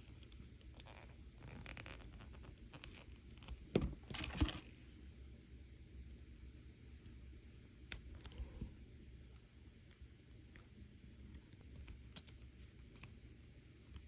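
Faint handling sounds of silver-plated copper wire being bent and wrapped by hand, with pliers: soft scratches and a few light clicks, the loudest about four seconds in, over a quiet room.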